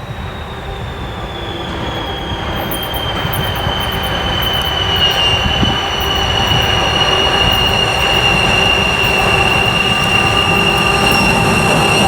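Turbocharger whistle of a 2TE116 diesel locomotive's 5D49 engine: a high whine that slides down in pitch over the first few seconds as the throttle is notched back, then holds steady. Under it the engine and train rumble grow louder throughout.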